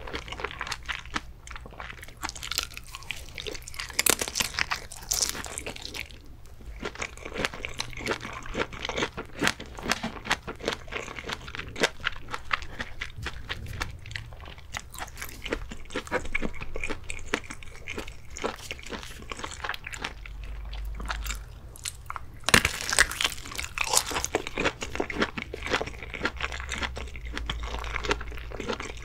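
Close-miked eating: bites into sausages dipped in cheese sauce and steady chewing, with louder crunching about four seconds in and again around twenty-three seconds.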